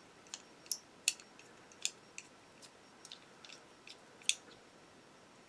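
Hand pin vise drilling into a plastic model aircraft fuselage: small sharp irregular clicks and ticks, roughly two a second, as the bit is twisted into the plastic, the loudest a little past the middle.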